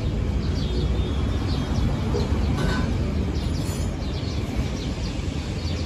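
Small birds chirping in short, repeated calls over a steady low rumble; no welding arc is heard.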